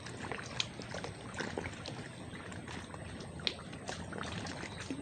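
Water lapping and trickling, a steady wash dotted with small irregular clicks and ticks.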